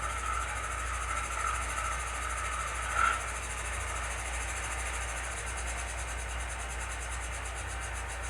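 HO-scale model locomotive's ESU LokSound decoder playing a recorded GE AC44C6M diesel prime mover at steady idle through the model's small speaker, with one short louder blip about three seconds in.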